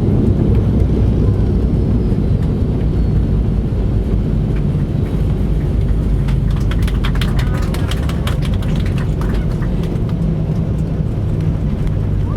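Airplane landing: a steady low rumble, with a spell of quick clattering rattles for several seconds in the middle.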